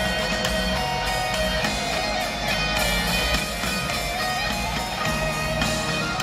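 Live heavy metal band playing loud through a stadium PA, electric guitars carrying a melodic line of held notes over bass.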